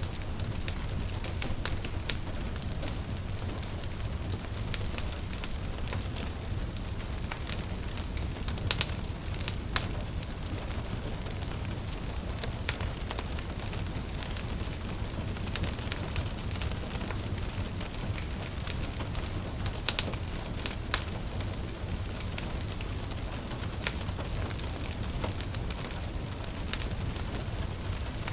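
Wood fire crackling with irregular sharp pops over a steady low rumble, with a gentle rain hiss beneath.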